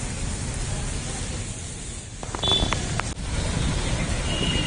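Heavy rain pouring in a hailstorm, a steady hiss. Around the middle come a few sharp knocks and a short high beep, and near the end another short high tone.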